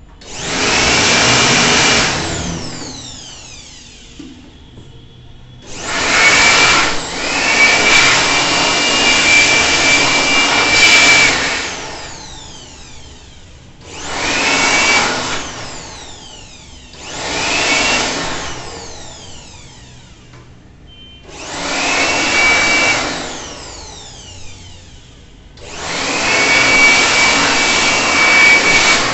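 Handheld 850-watt electric air blower duster blasting air at the blades of a dusty bathroom exhaust fan, in six bursts of one to five seconds. Each burst has a high motor whine that rises as it switches on and falls away as the motor spins down after release.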